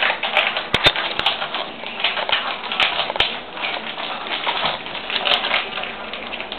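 Dogs' claws clicking and scrabbling on a hard floor as several young dogs tussle, a fast irregular clatter of sharp clicks.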